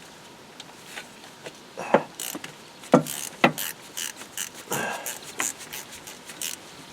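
Hand ratchet clicking in short, irregular strokes, with metal tool clinks, as bolts on the thermostat housing of a John Deere 6068 engine are loosened.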